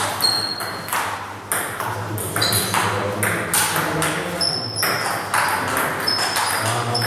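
Table tennis rally: the ball struck back and forth by rubber-faced paddles and bouncing on the table, a string of sharp ringing pings about one to two a second.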